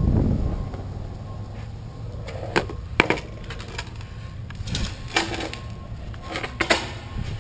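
Carver skateboard's wheels rumbling on concrete and dying away as it slows, then a string of sharp clacks and knocks as the board is handled.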